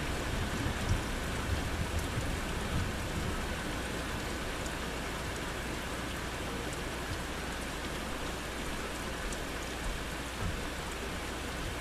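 Steady rain falling during a thunderstorm, with a low rumble of thunder swelling through the first three seconds or so.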